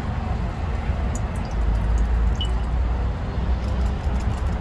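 Wind buffeting the microphone: a steady low rumble, with a few faint light clicks.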